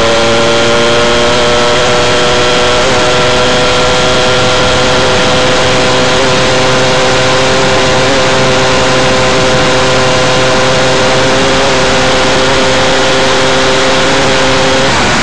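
Formula 5 single-seater race car engine heard onboard, holding a steady high-revving note that climbs slightly over the first couple of seconds. The note breaks off at the very end.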